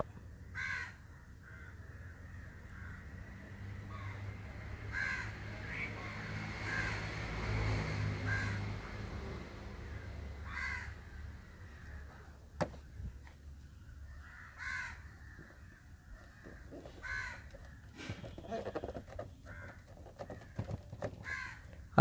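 Crows cawing outdoors, single calls every few seconds over a faint steady low hum, with one sharp click about halfway through.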